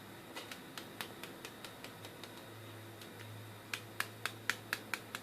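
Rubber hammer tapping lightly on the copper end windings of a rewound washing-machine motor stator to set and round the coils: scattered light taps, then a quicker, louder run of about four taps a second near the end.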